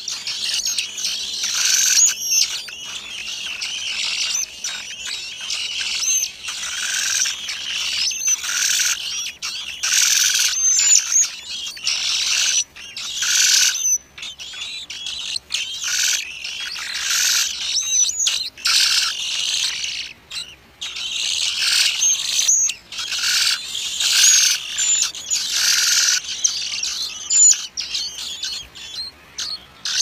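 A brood of thrush nestlings begging at the nest: a chorus of high, thin, rapidly repeated calls that come in bursts of a second or two with brief lulls between.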